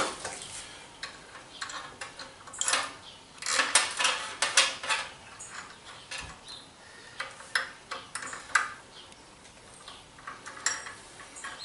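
Small metal parts and tools clinking and clattering as they are handled: irregular light knocks and clicks, in short clusters with quieter gaps between.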